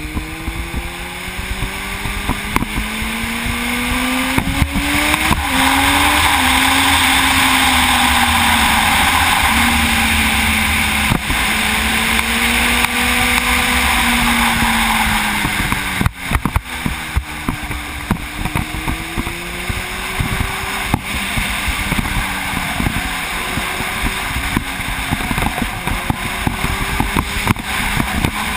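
Sport motorcycle engine pulling hard with a rising note, shifting up about five seconds in, then running fast with loud wind rush over the microphone. About halfway through the throttle closes briefly, and the engine note dips and then climbs again through the next curves.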